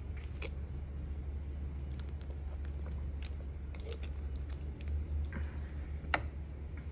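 Scattered light clicks and taps of painting tools being handled at the work table, with one sharper click about six seconds in, over a steady low hum.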